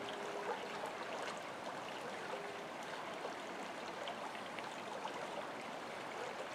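Small brook running over rocks: a steady rush of flowing water.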